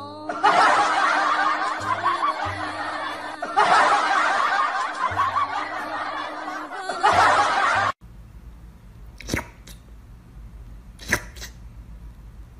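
Crowd laughter sound effect over background music, in three loud swells, cutting off suddenly about eight seconds in. After it comes a quiet room with two sharp taps.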